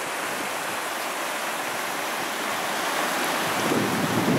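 Swollen, muddy river in flood rushing and churning in rapids along a concrete channel edge: a steady rush of water, growing louder near the end.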